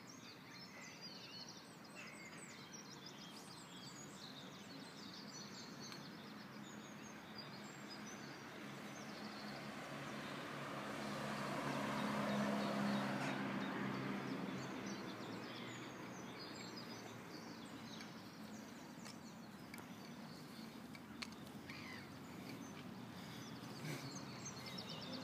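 Outdoor ambience with small birds chirping; a little before the middle a vehicle passes, its noise swelling and fading away over several seconds.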